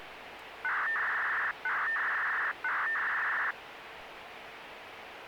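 Analog municipal disaster-prevention radio broadcast heard over a radio receiver: a steady hiss of static, with three electronic beeps about a second apart, each just under a second long, opening the transmission.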